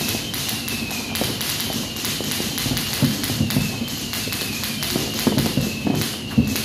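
Firecrackers and fireworks: dense popping and crackling, with heavier bangs about three seconds in and again near the end. A faint falling whistle repeats about once a second.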